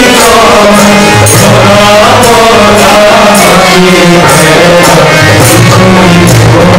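Devotional kirtan: a group of men singing a chant to harmonium, with a drum and regular bright cymbal strikes keeping time.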